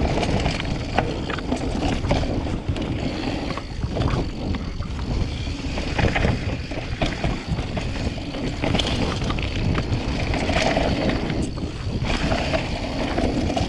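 Trek Fuel mountain bike descending a dirt trail at speed: a steady rush of wind on the microphone and tyre rumble, with scattered clicks and knocks as the bike rattles over bumps.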